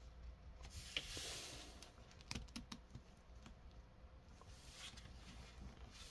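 Faint clicks and taps of hands handling a plastic action figure, with a small cluster of clicks a little over two seconds in.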